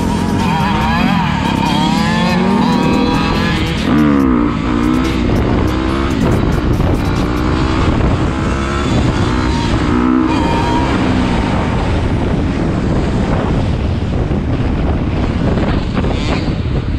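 Dirt bike engines revving up and down over and over, their pitch sweeping high and low as the throttle is worked, over the steady rumble of riding, heard from a camera on one of the moving bikes.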